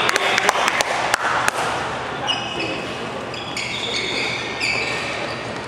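Scattered claps as the applause dies away, then a run of short, high squeaks from court shoes on the hall floor between about two and five seconds in.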